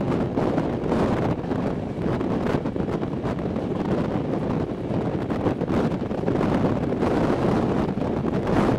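Wind rushing past an open window of a moving passenger train and buffeting the microphone, over the steady rumble of the train running on the track.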